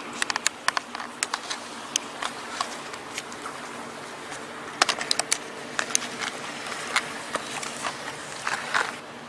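Tip of a Leatherman multitool working a sheet of dry birch bark: a string of irregular sharp clicks and scratches that come in bunches. A faint steady low hum runs underneath.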